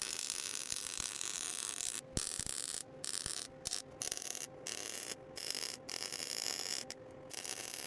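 Miller welder arc crackling as a spring perch is welded to a rear axle housing, in about nine short runs broken by brief pauses, with a faint steady hum underneath.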